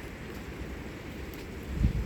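Thunderstorm wind and rain hissing steadily. Near the end a strong gust hits and buffets the microphone, much louder and low.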